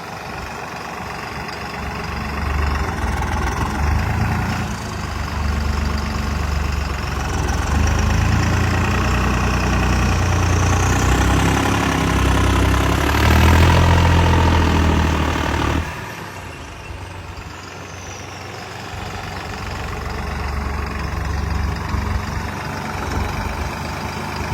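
Tractor diesel engine working hard under load, its note building over about fifteen seconds, then falling away sharply. It runs lower for a few seconds and slowly picks up again near the end.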